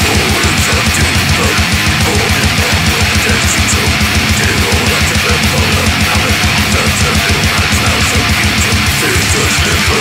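Death metal recording: distorted guitars over fast, steady double-kick drumming.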